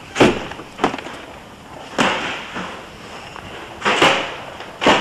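A series of about five sharp knocks or bangs at uneven intervals, each dying away quickly.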